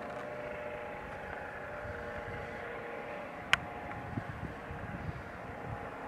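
Air ambulance helicopter flying at a distance: a steady turbine whine over rotor noise. A single sharp click about three and a half seconds in.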